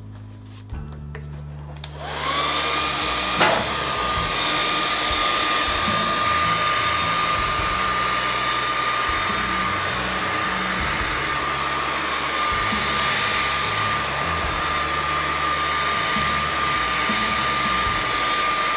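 Hair dryer switching on about two seconds in, then running steadily with a constant high fan whine, blowing wet acrylic pour paint across the canvas. There is a single sharp click about three and a half seconds in.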